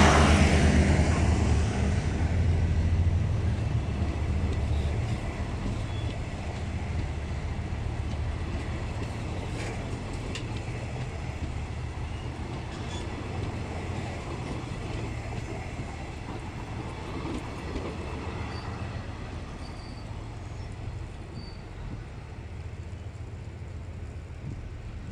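KTM diesel-hauled passenger train passing close by. The locomotive's deep engine rumble is loudest at first and fades over the first few seconds, then the coaches roll past on the rails, the sound slowly dying away as the train draws off.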